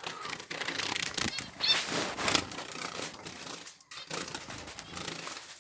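Caged finches fluttering and scrabbling, with rustling and small clicks of the cage, and one short high chirp about one and a half seconds in.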